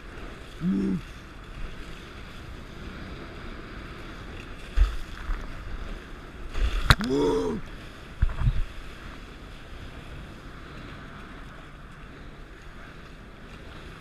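Wind and water rushing past a Dart 18 catamaran under sail in choppy sea, with a few low thumps around the middle, and a sharp click near seven seconds. Two brief voice sounds stand out, a short one about a second in and a louder one around seven seconds.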